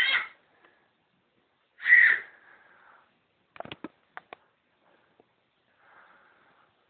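A baby's two short, breathy squeals about two seconds apart, followed by a few light knocks and taps.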